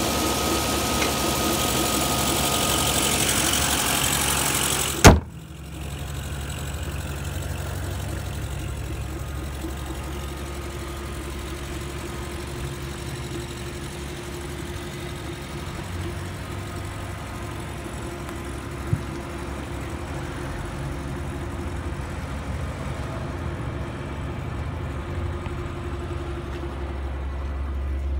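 Nissan Fairlady Z32 twin-turbo's 3.0-litre V6 idling steadily, heard close up with a thin steady whine over it. About five seconds in comes one loud slam, after which the idle sounds lower and more muffled; a light click follows much later.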